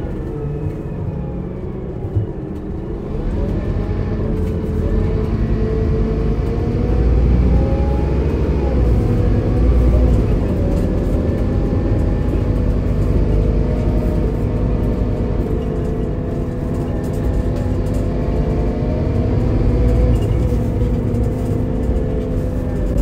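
A Scania DC9 five-cylinder diesel engine and its ZF Ecomat II automatic gearbox, running under way in a Scania K280IB coach. The engine note and gearbox whine rise and fall in pitch, louder twice as the coach pulls harder, over a heavy low rumble.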